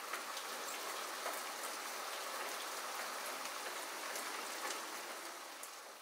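Steady rain falling, an even hiss of many drops with a few sharper drip ticks, fading away near the end.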